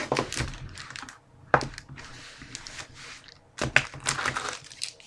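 Hands handling a trading-card box and its packs: scattered clicks and taps of cardboard with crinkling pack wrappers. There is a sharp tap about one and a half seconds in, and a busier run of clicks near the four-second mark.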